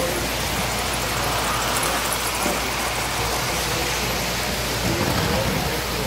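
Steady, even running noise of several Lionel O-gauge toy trains going round a large three-rail layout.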